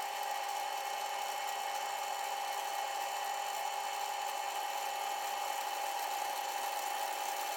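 Milling machine running with a fly cutter facing the top of a metal plate: a steady, even whine with a hiss.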